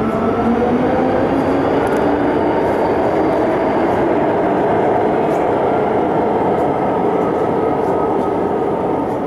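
MTR Island Line M-Train running through the station at speed without stopping: a steady rumble of wheels on rail with a steady whine over it, easing slightly near the end.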